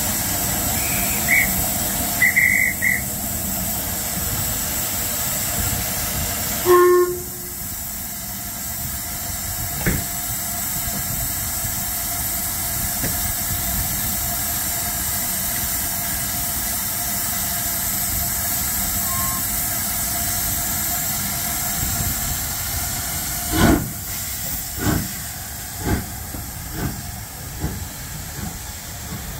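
Black 5 steam locomotive giving off a steady loud hiss of steam, with a few short high tones in the first three seconds and a brief lower tone about seven seconds in. Near the end come about six heavy exhaust beats, each sooner after the last, as the engine starts to pull away.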